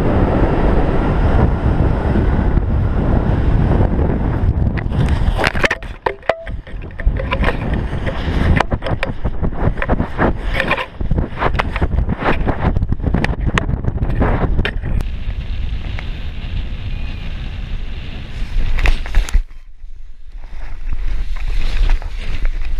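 Strong wind buffeting the microphone of a paraglider pilot's camera while the wing is collapsed and tumbling in rotor turbulence. From about five seconds in a dense run of sharp cracks and flutters cuts through the rush, and near the end the wind drops briefly, then picks up again.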